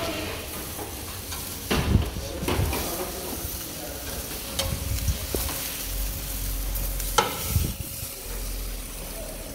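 Barbecue chicken sizzling on a grill, with utensils scraping and a handful of sharp knocks as food is handled.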